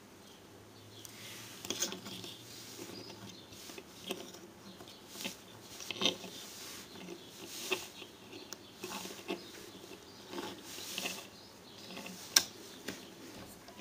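Plastic Transformers Generations Deluxe Waspinator action figure being handled and posed, its ball joints clicking and its plastic parts knocking as the limbs are moved. Scattered faint clicks at uneven intervals, with one sharper click near the end.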